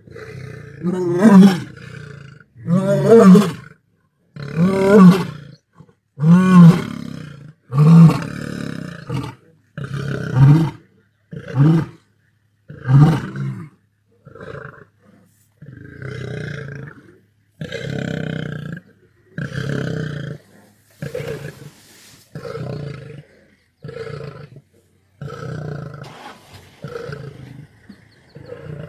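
Male lion's roaring bout: a series of loud, deep roars about every one and a half to two seconds, giving way about halfway through to quieter, shorter grunts.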